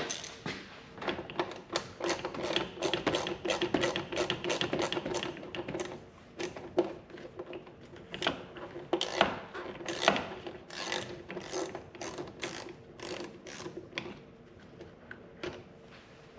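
Hand ratchet clicking as it backs out 7 mm screws, in fast runs of clicks for the first several seconds, then in sparser strokes that thin out toward the end.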